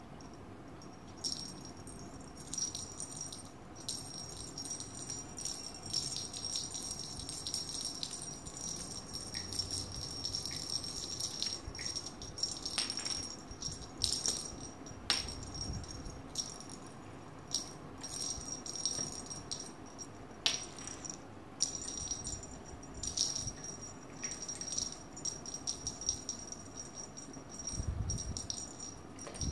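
Small jingle bell on a cat wand toy jingling in irregular bouts of shaking as a kitten bats at and bites the stick, starting about a second in.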